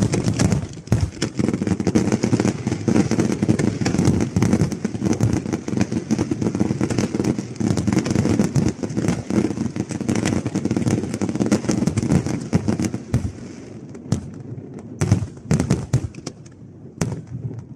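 A fireworks barrage: a dense run of rapid bangs and crackling that starts suddenly, then thins out about thirteen seconds in to a few separate bangs.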